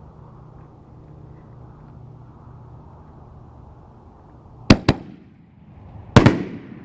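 5-inch 60-gram canister firework shells fired as a pair: two sharp bangs a fraction of a second apart near the end, pretty loud, then a third bang about a second and a half later that trails off in an echo.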